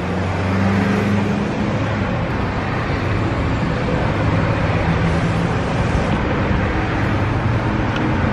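Steady low hum of nearby car engines and road traffic.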